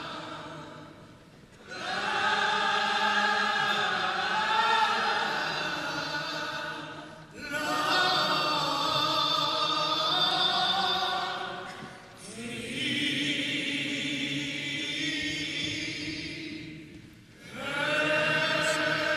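Gospel choir singing with voices at the front microphones, in long held phrases of about five seconds, each followed by a short break.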